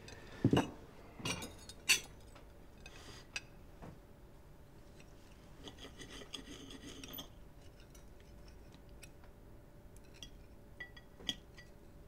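Knife and fork on a china plate while steak is cut: a few sharp clinks in the first two seconds, a stretch of scraping a few seconds later, then lighter clinks near the end.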